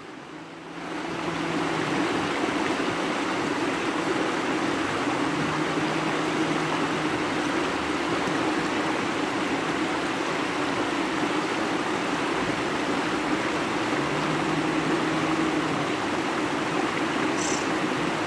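Shallow river rushing steadily over rocks and boulders, fading in over the first second. A faint low hum comes and goes three times underneath.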